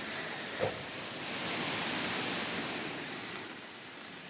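Steady rushing of a waterfall, swelling a little then easing off, with one brief knock about half a second in.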